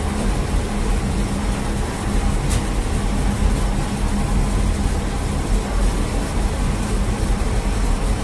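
Steady low drone of running bakery machinery at a mechanized bread oven, with a constant low hum and one sharp click about two and a half seconds in.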